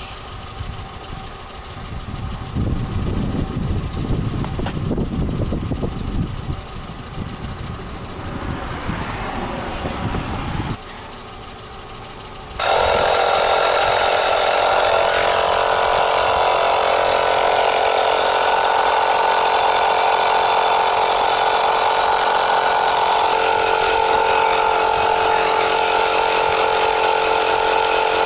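A portable tyre air compressor switches on about twelve seconds in and runs steadily and loudly, pumping air through its hose into a car tyre. Before it starts there is only a low, uneven rumbling.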